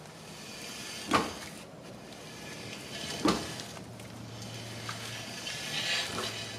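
Jeep Wrangler's freshly refitted rear brake drum turned by hand on its hub, a steady scraping hiss of the drum rubbing over the new brake shoes, with two sharp knocks about a second and three seconds in. The drum fits a little too tight and drags.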